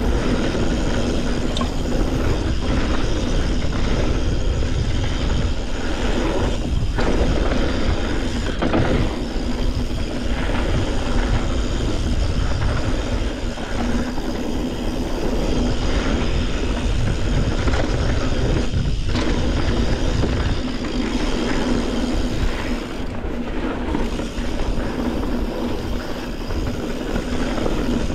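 Wind rushing over the camera microphone and the tyres of a Yeti SB140 mountain bike rolling and rattling down a dirt downhill trail, a steady loud noise with a deep rumble.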